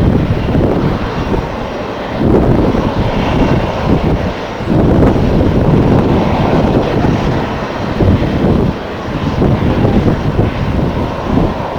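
Jet airliner engines running at an airport, heard through heavy wind buffeting on the microphone, which surges in uneven gusts.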